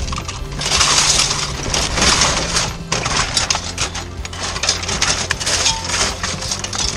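Shop rubbish being rummaged through by hand in a metal bin: clear plastic packaging and wire display pieces rustling, crinkling and clattering in repeated bursts, over a steady low hum.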